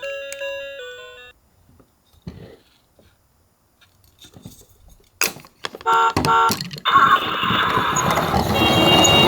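Toy ambulance electronic siren sounds. A brief run of stepped beeping tones fades out in the first second, followed by a quiet stretch with faint clicks. About six seconds in come two short beeps, then a loud, noisy siren sound with a steady tone.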